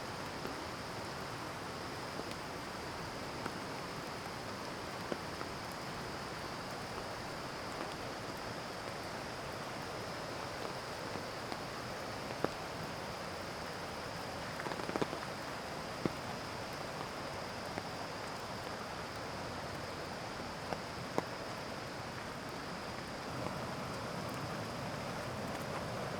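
Steady rain falling in the forest with scattered louder drips, over the even rush of the mountain stream. A thin steady high-pitched tone runs underneath.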